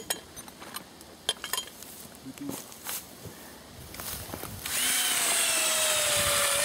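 Cordless drill running for about two and a half seconds, pressed into a wooden fence rail, its motor whine sinking slightly in pitch under the load. Before it, a few light clicks and knocks.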